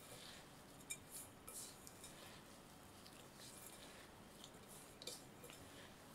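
Faint crackling and rustling of crushed biscuit crumbs being kneaded by gloved hands in a glass bowl, with scattered light clicks.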